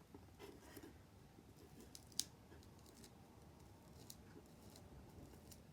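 Near silence with faint, scattered clicks and rustles of fingers picking at the plastic covering on a ribbon spool, and one sharper click about two seconds in.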